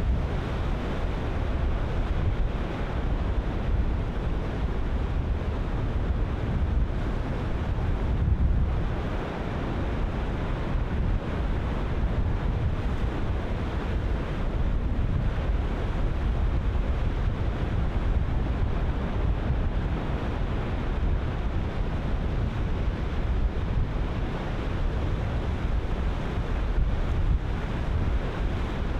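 Ocean surf breaking continuously, with wind buffeting the microphone in a low, steady rumble.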